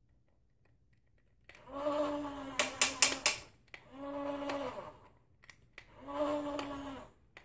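Electronic sound effect from the RC missile-launcher toy car's speaker: a buzzy pitched tone about a second long, dipping at its end, repeating about every two seconds, three times. A quick run of sharp clicks cuts across the first tone.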